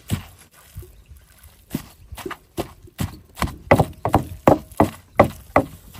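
Pestle pounding chilli curry paste in a mortar. Repeated hollow knocks come faster and louder in the second half, about three strokes a second.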